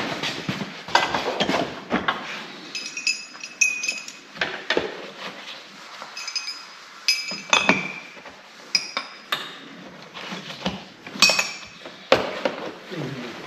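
Metal hand tools clinking and clattering in an open tool chest drawer as they are rummaged through: an irregular string of sharp clinks, some with a brief metallic ring.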